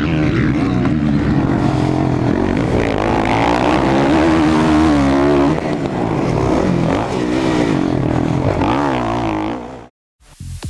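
Dirt bike engines revving up and down on a motocross track, the pitch rising and falling with the throttle. The sound cuts off abruptly near the end, and electronic dance music starts.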